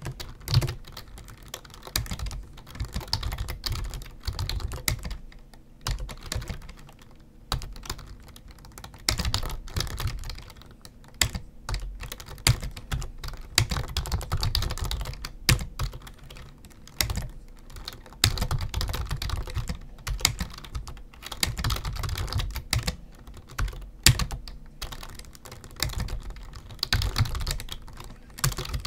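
Typing on a computer keyboard: runs of rapid keystrokes lasting a few seconds each, with short pauses between them.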